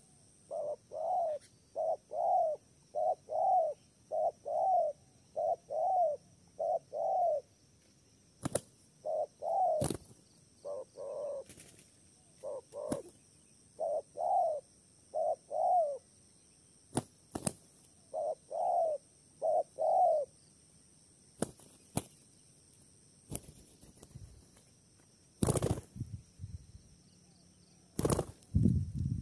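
Spotted dove cooing: a long run of short, mellow coos in clustered phrases with brief pauses between them. Later come two bouts of wing flapping, about 25 and 28 seconds in.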